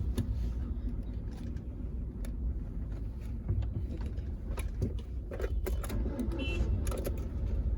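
Manual-transmission car's engine running low and steady as the clutch is slowly let out in first gear and the car pulls away from a stop, with scattered light clicks and knocks.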